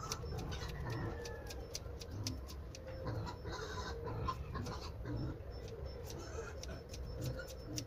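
Scissors snipping through a dog's coat, a quick sharp click several times a second, with animal calls in the background.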